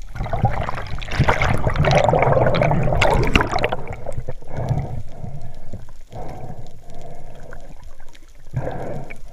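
Muffled underwater water noise around a swimming diver's camera, heard through its housing. A loud rushing stretch starts about half a second in and lasts about three seconds, then gives way to shorter swishes roughly once a second.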